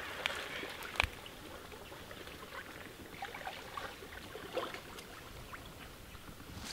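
Faint water sloshing and trickling around a person wading waist-deep through a pond, with one sharp click about a second in.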